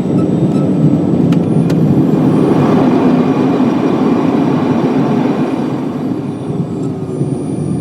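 Steady rumble of a jet airliner heard from inside the cabin, engine and airflow noise.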